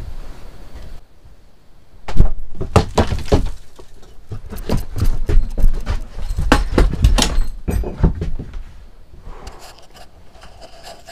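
A rapid, irregular series of thumps, knocks and clattering for about six seconds, starting about two seconds in, as a moving night-vision camera is jostled and knocked about.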